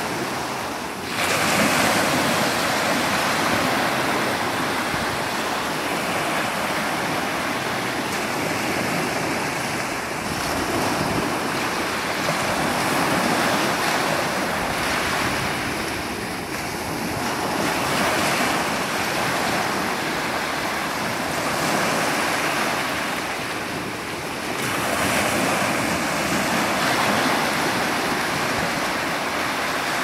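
Small sea waves breaking and washing up a sandy beach: a continuous hiss of surf that swells and eases as each wave comes in, about every seven or eight seconds.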